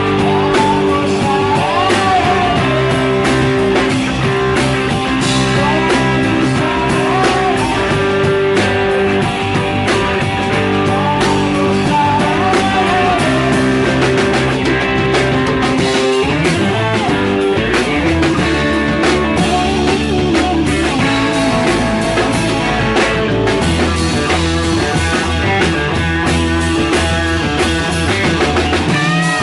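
Live rock band playing a loud, mostly instrumental guitar-led passage, with electric guitar over bass and drum kit.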